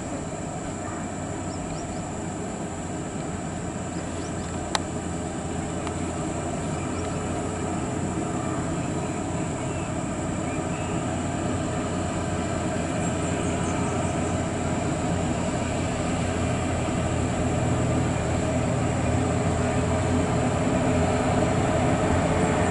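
Volvo FH16 tipper truck's 16-litre straight-six diesel running as the truck approaches on a dirt haul road, the engine and road noise growing steadily louder. A single sharp click sounds about five seconds in.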